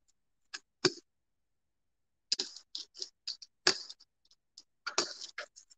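Small rubber hand brayer rolled back and forth through wet paint, giving short tacky clicking and crackling strokes in irregular bursts, with brief pauses between them.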